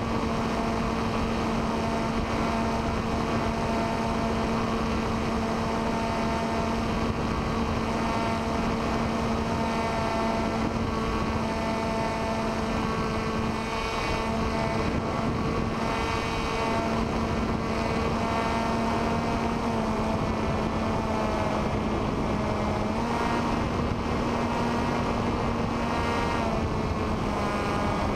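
Radio-controlled airplane's motor and propeller running at steady throttle, a held buzzing tone over wind rush. The pitch shifts slightly a couple of times in the second half.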